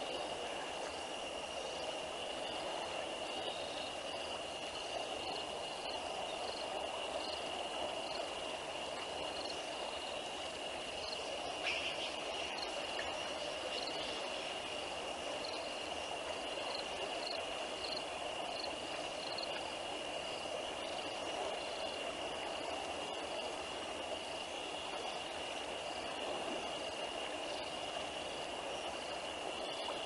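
Evening chorus of insects and frogs: a steady high insect trill with a regularly repeated chirping above it, over a constant low wash of noise. A short sharp sound stands out about twelve seconds in.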